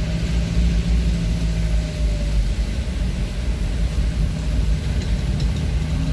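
A vehicle's engine running with a steady low hum over heavy road rumble; the engine hum weakens about two and a half seconds in and comes back near the end.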